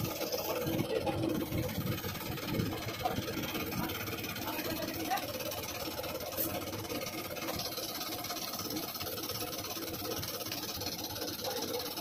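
A steady engine-like running hum in the background, with a few faint clicks.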